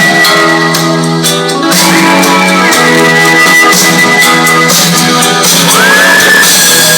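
Music played loud through an Amvox portable speaker: an instrumental passage with guitar, with no vocal in it. It keeps playing without cutting out.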